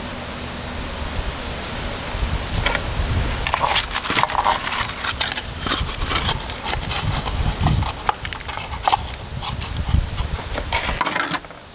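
Irregular knocks, taps and scrapes of a two-part plastic mold and its fresh concrete casting being handled, over a steady low rumble.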